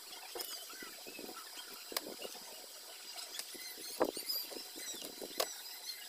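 Faint scraping and handling noise with a few sharp clicks, about two seconds in, at four seconds and near the end: side cutters snipping and pulling away the old lead-wire loops on a ceiling fan's stator coil, whose loop connection has failed.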